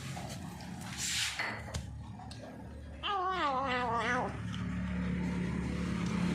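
Feral cat making a wavering, drawn-out cry while eating, about halfway through, followed by a low steady drone. A short hissy burst comes about a second in.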